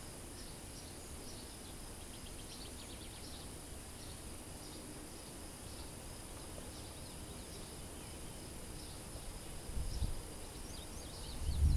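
Calm rural ambience before a storm: birds chirping and a steady high insect buzz. Near the end, a brief low rush of wind hits the microphone.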